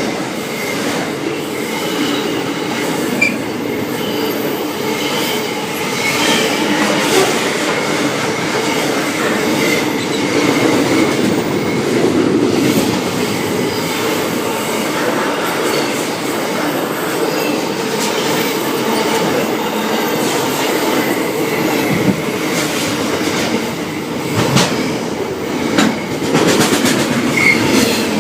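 Freight train wagons rolling past, with bad wheel squeal in thin high tones over a steady rumble and repeated clicks of wheels over rail joints.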